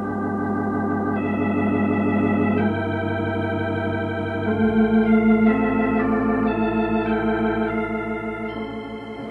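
Organ music bridge between radio-drama scenes: a slow run of sustained chords with a wavering tremolo, changing every second or so. It swells toward the middle and fades near the end.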